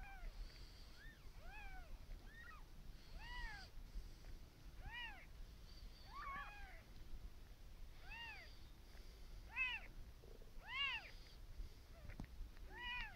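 Newborn kitten mewing: about a dozen short, high cries, each rising and falling in pitch, roughly one a second, the loudest a little after halfway.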